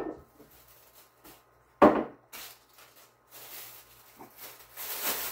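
Kitchen-counter handling noises: one loud, sharp knock a little under two seconds in, a few faint taps, then plastic bag rustling near the end.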